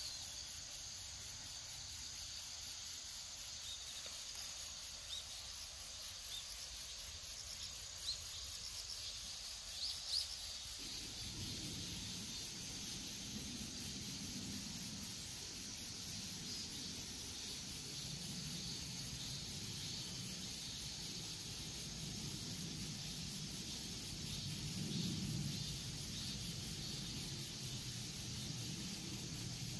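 Autumn field insects such as crickets chirping on and on in a high, evenly pulsing trill. A low rumble joins about a third of the way through.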